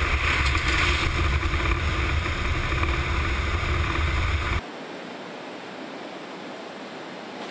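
Loud roar of a military cargo aircraft's engines and rushing air through its open side jump door, heard from inside the cabin, with a deep rumble under a bright hiss. It cuts off suddenly about four and a half seconds in, giving way to a quieter, steady noise.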